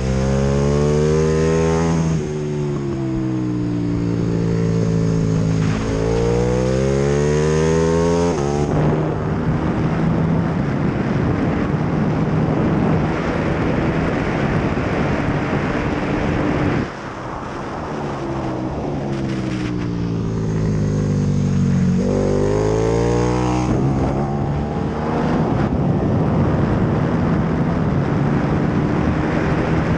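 KTM 1290 Super Duke R's 1301 cc V-twin on a fast track lap, heard from an onboard camera. Twice the revs fall away as the throttle shuts for braking and downshifts, then climb steeply as it accelerates out of the corner. On the straights in between, at high speed, a steady rushing wind noise over the engine dominates.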